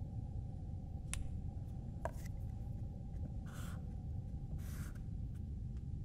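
Low, steady rumbling drone with a faint held tone above it, broken by a couple of faint clicks and then two short hissing swishes about a second apart.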